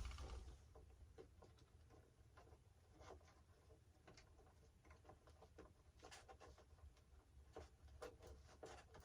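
Near silence with faint, scattered light clicks and rustles of small handling.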